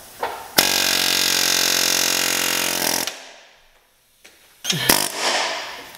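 Pneumatic air hammer running in one steady rapid burst of about two and a half seconds, driving a broken pressed-in stud out of a heated, rusted exhaust flange. It is followed by a shorter burst of noise with knocks about five seconds in.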